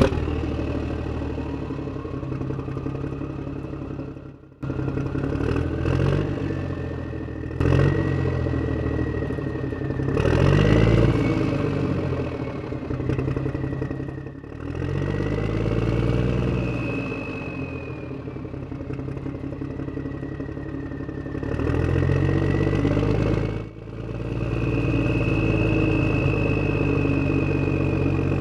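Tractor engine sound effect: an engine running and revving up and down, with a whine that rises and falls. It breaks off abruptly a few times, at about four and a half, seven and a half and twenty-four seconds in.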